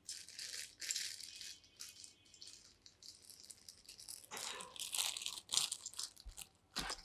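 Rattling, shaker-like noise in irregular short bursts, with scattered clicks, busiest about four to six seconds in.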